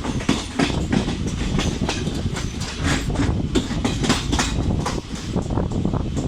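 Express passenger train passing at speed without stopping: its coaches rumble steadily by as the wheels clack rapidly over the rail joints.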